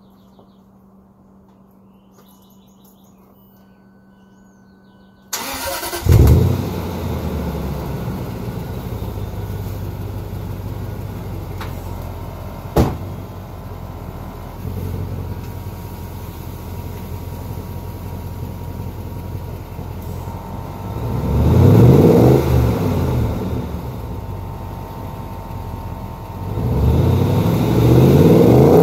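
A 2006 Range Rover Sport Supercharged's 4.2-litre supercharged V8 starting about five seconds in, flaring briefly and settling to idle, then revved twice in the last third, heard at the tailpipes with the number 7 exhaust resonator removed. One sharp click a little under halfway.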